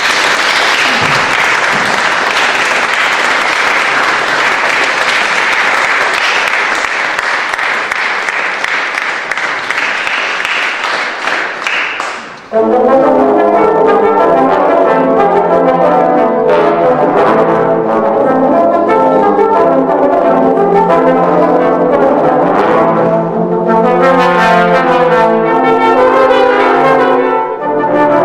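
Audience applauding for about twelve seconds. Then a trombone quartet starts playing, several trombones sounding sustained chords together.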